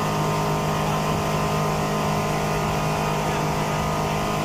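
Honda 225 four-stroke V6 outboard motor running steadily at full throttle, holding one even pitch, over the rush of the boat's wake and spray.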